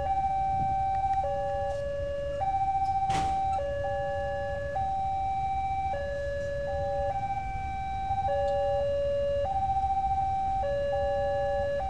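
Railway level-crossing warning alarm sounding: an electronic signal stepping back and forth between a higher and a lower pitch in an uneven repeating pattern, warning of an approaching train. A short sharp sound cuts in about three seconds in.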